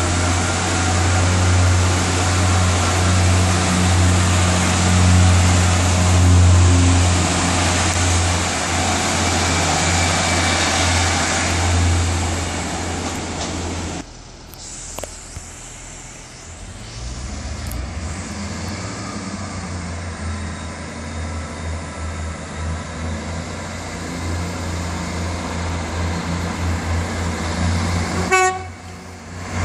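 Class 142 Pacer diesel railbus idling at the platform with a strong, steady low engine hum. After a sudden drop in level about 14 seconds in, a Class 158 diesel multiple unit runs in toward the platform, its sound growing louder as it nears.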